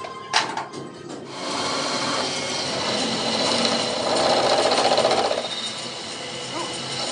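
A few sharp metal knocks, then a power tool runs on metal for several seconds, loudest a little past the middle before easing off.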